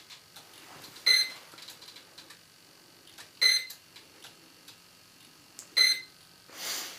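Short high electronic beeps repeating about every two and a third seconds, three in all, from the RC ground equipment. A short hiss near the end.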